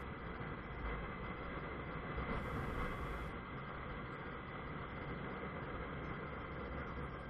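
Honda CBF 125's single-cylinder four-stroke engine running steadily under way, mixed with wind and road noise.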